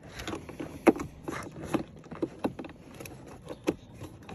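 Plastic wiring-harness connectors of an OBD diagnostic dongle being handled and pushed into a car's diagnostic connector: a scatter of small clicks and knocks, the sharpest about a second in.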